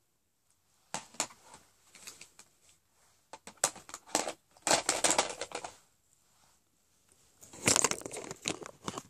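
Crackly rustling and crinkling handling noise close to the microphone, in several irregular bursts with quiet gaps between them; the longest bursts come in the middle and near the end.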